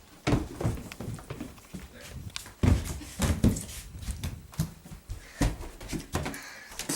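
Irregular knocks and thuds, several a second at times, with some brief higher-pitched scrapes among them.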